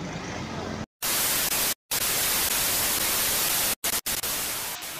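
Television static used as a glitch transition: a loud, even hiss of white noise that starts about a second in and cuts out abruptly a few times into split-second dead silences before dropping away near the end.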